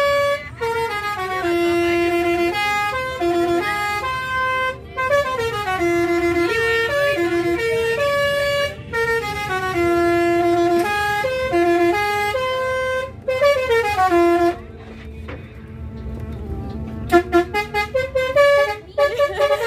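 A bus's musical multi-note 'basuri' (telolet) horn playing a stepping melody for about fourteen seconds. It then stops, leaving the low rumble of the engine, and gives several short toots near the end.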